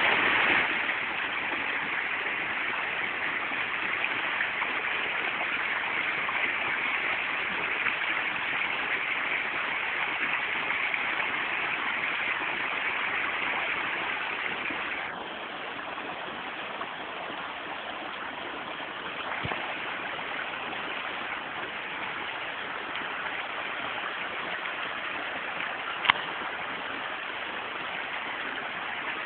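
A steady rushing noise that drops a little about halfway through, broken once about 26 seconds in by a single sharp crack of a KJ Works Beretta M9 airsoft pistol firing.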